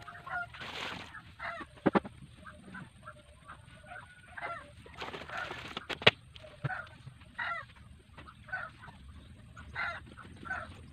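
Farm fowl calling over and over in short calls, with two sharp knocks, one about two seconds in and one about six seconds in.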